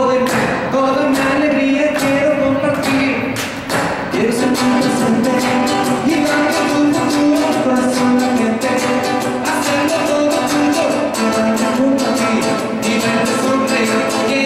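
Live song: a man singing over his own steadily strummed acoustic guitar.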